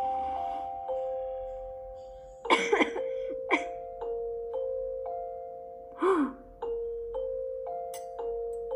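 Gentle film score of struck, bell-like notes, each ringing on and slowly fading as the melody steps between a few pitches. Brief voice-like sounds, such as a gasp or sigh, break in at about two and a half seconds, again a second later, and at about six seconds.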